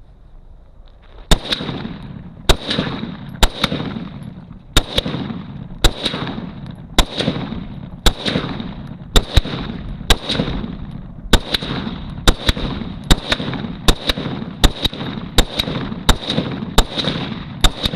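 Springfield M1A SOCOM 16 rifle firing .308 Winchester in steady semi-automatic fire, about one shot a second and quickening toward the end, each shot trailing off in a short echo.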